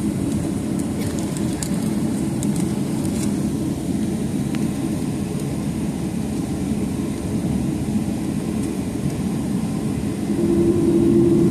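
Steady low cabin rumble of a Boeing 737-800 with its engines running before takeoff, heard from inside the cabin. There are a few light clicks in the first few seconds, and about ten seconds in a steady hum comes in and the sound grows a little louder.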